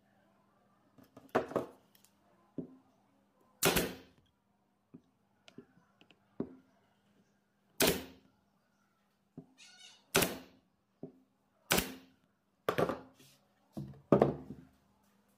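Pneumatic nailer firing about six times into pine pallet wood, each shot a sharp crack with a short tail, spaced irregularly one to two seconds apart. Lighter knocks of wood being handled come between the shots.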